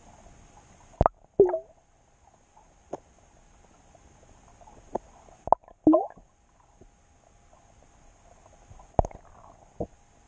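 A few sharp clicks and knocks heard underwater, coming in three small clusters; two of them are followed by a short tone that bends downward.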